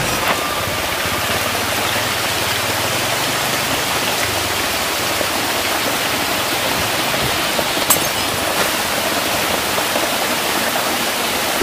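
A dense mass of hybrid magur catfish churning and splashing in shallow tank water as they crowd around the feed: a steady rushing splash. One sharp click about eight seconds in.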